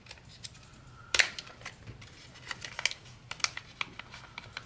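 Clear plastic zip-top bag being handled and pulled open: a sharp crackle about a second in, then scattered crinkles and clicks of the plastic.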